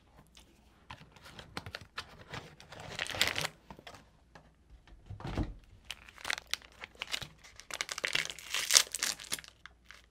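Plastic Oreo cookie wrapper crinkling and tearing as it is opened by hand. It comes in bursts that grow dense and loudest in the last few seconds, with a dull thump about five seconds in.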